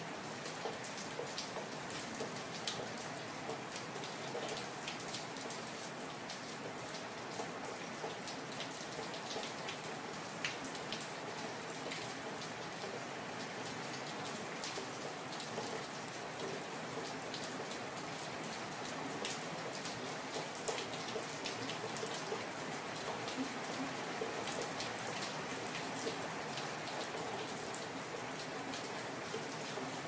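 Steady rain falling, an even hiss with scattered individual drops ticking out sharply above it.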